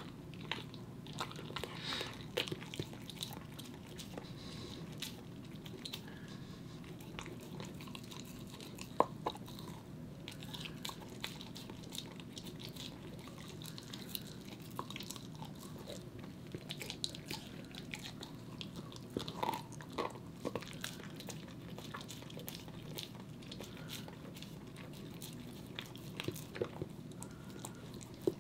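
A corgi gnawing and chewing on a raw meaty bone: irregular scraping, clicking and crunching of teeth on bone and meat, with one sharper crack about nine seconds in.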